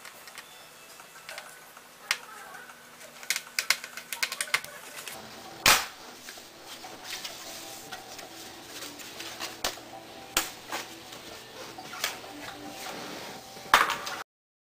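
Irregular clicks, taps and knocks of a laptop's plastic and metal parts being handled and taken apart, a few sharper knocks among them. The sound cuts off suddenly near the end.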